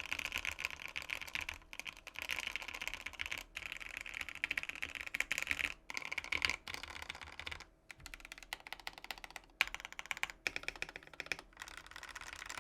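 Typing sound test on a top-mounted Satisfaction75 75% mechanical keyboard with an FR4 plate, Banana Split switches lubed with 205g0 and Osume keycaps, tape-modded with one layer of tape: rapid keystroke clacks in bursts with brief pauses between them.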